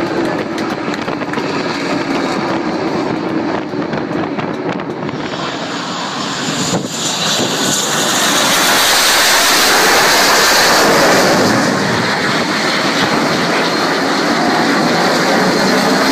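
Jet engine of a Northrop Grumman X-47B unmanned aircraft on its carrier landing: a steady rush that swells after a sharp thud about seven seconds in as the drone touches down and is caught by the arresting wire, then stays loud with the engine running on deck.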